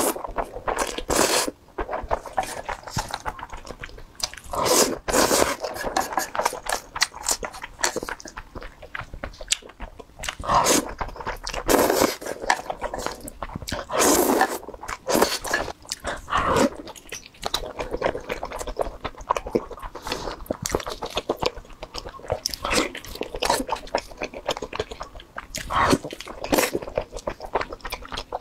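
Close-miked eating: slurping and chewing spicy instant noodles, with dense wet clicks and louder slurps every few seconds. Near the end, biting into a whole grilled eel.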